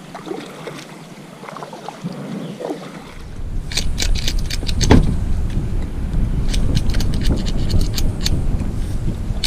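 Movement and handling noise aboard a kayak: fairly quiet at first, then a low rumbling noise starts about three seconds in, with a run of sharp clicks and taps over it.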